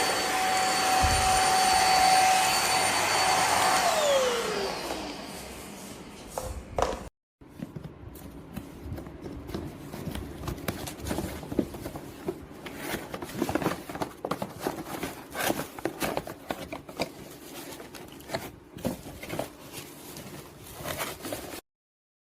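Electrova Vaclife G7 handheld vacuum running with a steady high whine, then switched off about four seconds in, its motor winding down in a falling whine. After a brief cut, a long run of light clicks and knocks follows.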